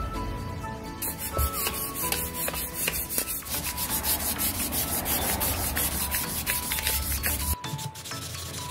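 Hand sanding with sandpaper over dried filler on an air hammer's metal housing: rapid, repeated rubbing strokes, which change abruptly near the end.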